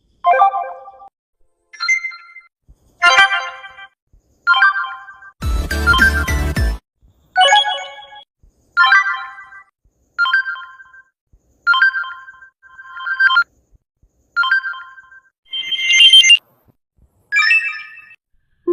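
A rapid sequence of short Samsung phone notification tones, each a different brief chime, about one every second and a half with silence between. One longer, noisier alert with a deep low part sounds about five and a half seconds in.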